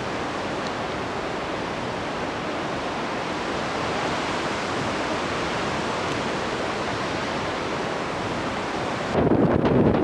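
Steady rush of sea surf breaking on a rocky shore. About nine seconds in it gives way abruptly to louder wind buffeting on the microphone.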